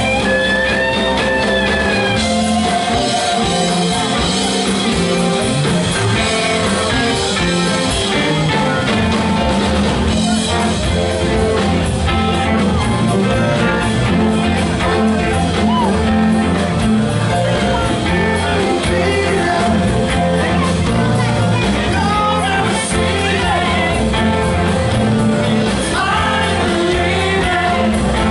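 Live rock band playing loudly: electric guitars, bass, keyboards and two drum kits, with singing.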